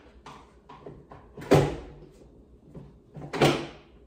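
Parts of a Graco Modes Pramette stroller clunking as they are handled and fitted together: two loud knocks about two seconds apart, with smaller knocks between.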